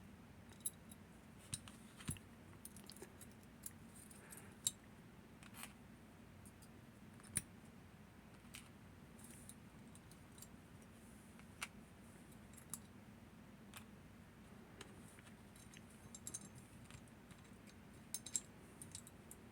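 Faint, scattered metallic clicks and taps of small parts being handled as a Northern Telecom NE-22 lever lock is taken apart, coming more often near the end, over a quiet steady hum.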